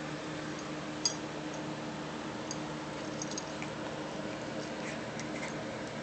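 A small dog scuffling on bedding close to the phone: faint rustling with scattered light clicks and one sharper click about a second in, over a steady low hum.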